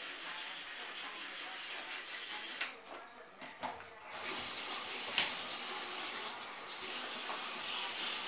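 Toothbrush scrubbing teeth, then a short pause, and about four seconds in a bathroom sink tap is turned on and water runs steadily into the basin.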